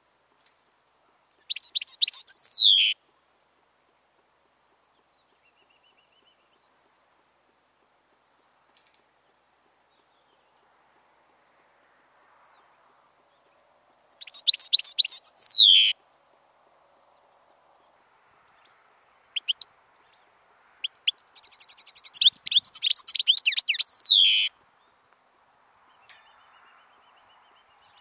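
European goldfinch singing in three bursts of rapid, high twittering song: two of about a second and a half each, then a longer one of about five seconds later on. Each burst ends in falling, slurred notes, and there are long quiet gaps between the bursts.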